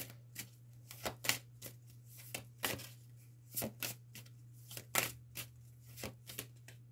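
A deck of oracle cards being shuffled by hand: irregular crisp card slaps and snaps, about two a second, over a steady low hum.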